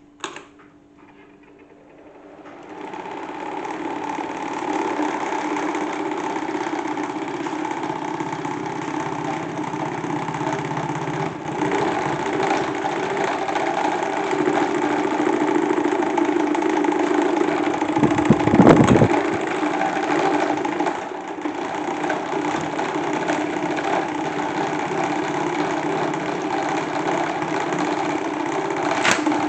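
Salad spinner rigged as a toy washing machine, spinning up about two seconds in and then running at a steady whirr. There is one louder clatter a little past halfway.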